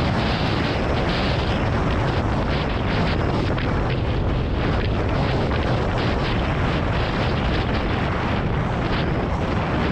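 Dirt bike engine running steadily on the move, buried in heavy wind buffeting on the microphone.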